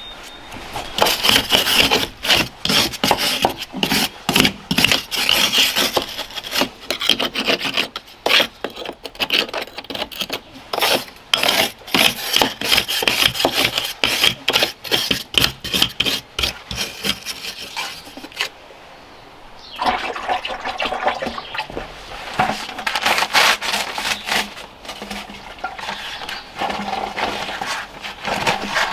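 Rapid, irregular scraping strokes, breaking off for about a second past the middle.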